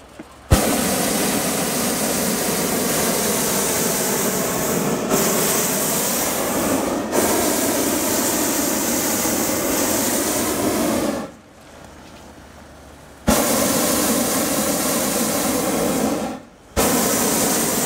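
Hot-air balloon's twin propane burner firing into the envelope in long blasts, a loud steady hissing roar. Each blast starts abruptly: the first lasts about eleven seconds, then after a two-second pause comes a three-second blast, and another begins near the end.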